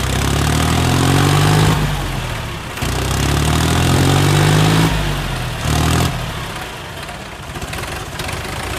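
Tractor diesel engines revving hard under heavy load as the two tractors pull against each other in a tug-of-war. The engine note rises twice, each time for about two seconds, drops back in between, gives one short rev a little past the middle, then settles lower.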